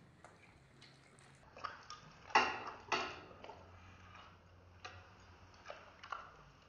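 People eating momos: scattered small mouth clicks and chewing, with two short, louder noisy bursts about two and a half and three seconds in.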